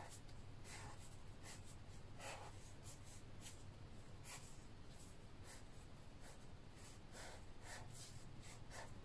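Black fineliner pen drawing lines on watercolour paper: faint, short scratching strokes at irregular intervals.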